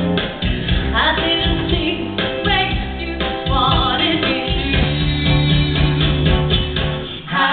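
Upbeat pop music with singing over a band, with a brief dip in the music near the end.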